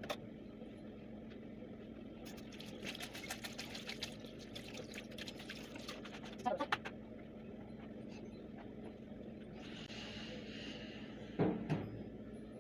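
Kitchen cleaning at a microwave: a quick run of clicking and scrubbing, a couple of knocks of objects being handled, and a short hiss of water or spray near the end, over a steady low hum.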